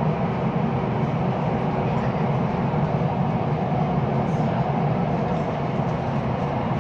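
Downtown Line metro train running at speed through a tunnel, heard from inside the car: a steady, low rumble of wheels on rail and traction equipment.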